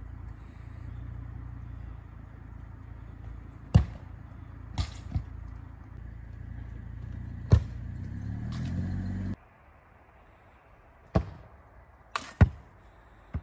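A soccer ball kicked again and again: a series of about eight sharp thuds of foot on ball and of the ball striking the rebounder net and its frame. For the first nine seconds a steady low rumble runs underneath, with a rising engine-like hum shortly before it cuts off.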